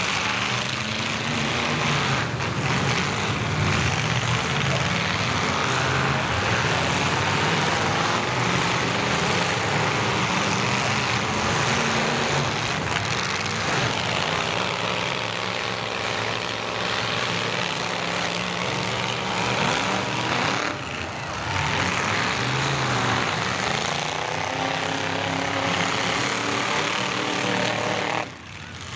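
Demolition-derby truck engines running hard, their revs rising and falling as the trucks drive and ram.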